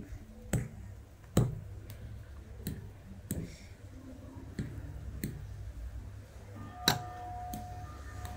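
Metal fork clinking and scraping against a glass mixing bowl while stirring a potato and cornstarch mixture: irregular sharp clicks, the loudest about one and a half seconds in and again near the end.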